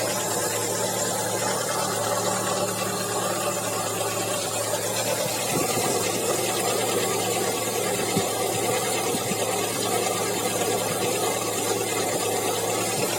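Audi 100 C3 1.8 four-cylinder carburettor engine idling steadily with a fast, even mechanical knock from the engine: the knock the owner is showing.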